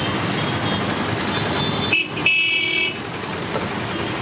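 Busy street traffic noise, with a vehicle horn honking once for just under a second about two seconds in.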